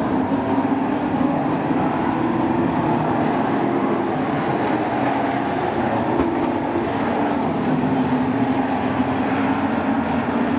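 Sport-truck race engines running steadily on a short oval track, a loud continuous drone with a slightly wavering pitch.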